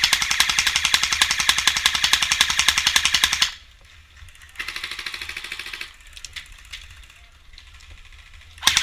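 Airsoft gun firing on full auto: a rapid, even clatter of shots in a long burst lasting about three and a half seconds, then a shorter, quieter burst about five seconds in.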